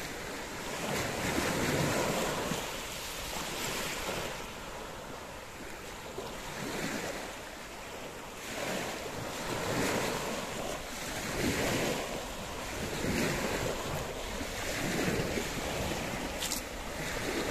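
Small waves washing onto the shore, swelling and fading every second or two, with wind buffeting the microphone.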